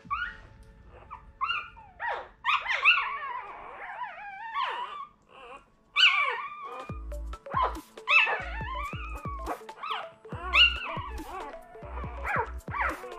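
Newborn Irish Setter puppies squealing and whimpering in the whelping box: many short, high squeaks that rise and fall in pitch, overlapping one another as the litter roots and nurses.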